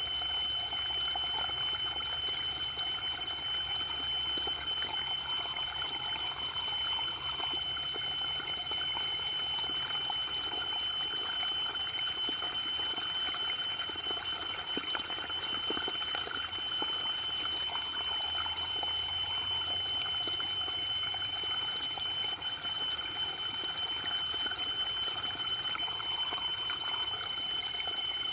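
Waterfall: steady rushing and splashing of falling water, with a thin, steady high-pitched tone running through it.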